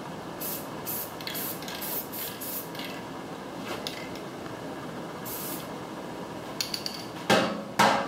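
Aerosol spray-paint can hissing in a series of short bursts as black paint is sprayed onto a steel trailer wheel, followed near the end by two loud knocks.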